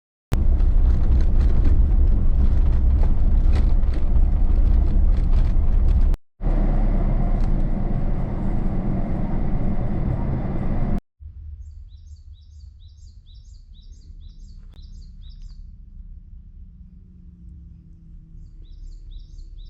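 Loud, steady noise of a Suzuki Jimny driving on a forest track, in two clips with abrupt cuts. After the second cut it gives way to a quiet scene where a small bird chirps in quick runs.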